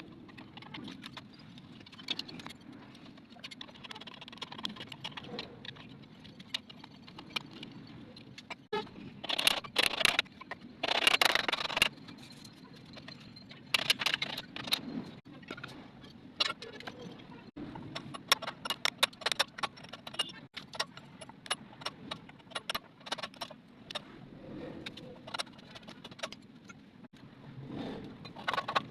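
Metal tools and engine parts clinking and clattering during hand work on a small generator engine, in irregular light clicks with louder rattling and scraping stretches about ten and fourteen seconds in.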